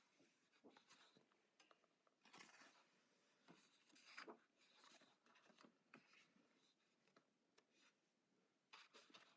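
Faint rustles and swishes of paper pages being turned in a coloring book, a few short brushes of paper with near silence between them.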